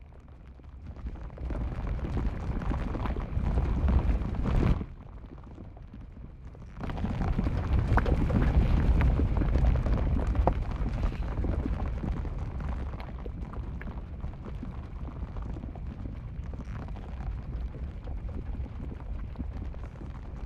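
Volcanic eruption: a heavy low rumble with sharp cracks through it, falling away abruptly about five seconds in and coming back loudly about two seconds later before settling to a steadier rumble.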